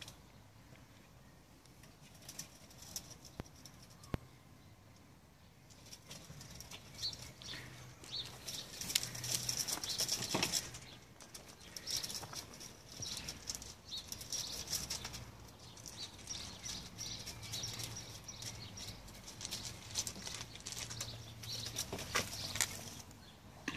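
Irregular crunching and rustling of movement on garden gravel, in clusters of small crackles that begin about six seconds in and are loudest around ten seconds.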